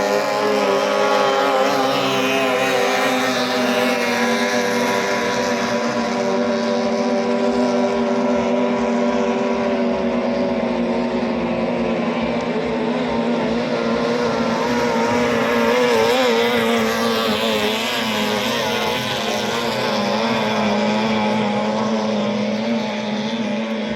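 18 hp outboard motor on a racing boat running flat out, a steady high engine note with a slight waver in pitch.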